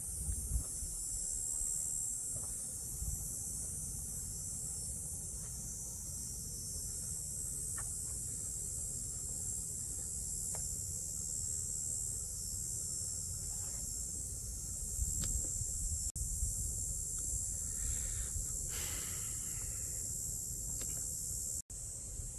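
Steady high-pitched drone of insects, over a low rumble. The sound cuts out for an instant near the end.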